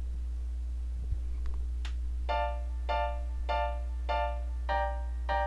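Software piano (FL Keys) playing short, clipped triad chords on the offbeat, a reggae-style off-beat comp, about two chords a second, starting about two seconds in. A few faint clicks come before it, and a steady low hum runs underneath.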